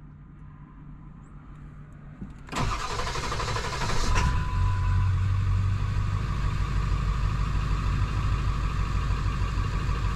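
A 1999 Ford F-350's 7.3 L Powerstroke turbo-diesel V8 is started: it cranks about two and a half seconds in, catches about a second and a half later and settles into a steady idle.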